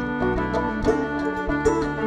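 Acoustic folk music played on plucked string instruments: an instrumental passage with quick, repeated note attacks over sustained tones.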